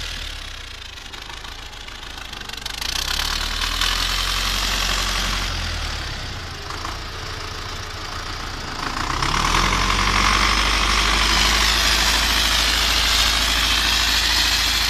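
Tractor engine running steadily, quieter for the first couple of seconds, then rising in pitch and growing louder about nine seconds in.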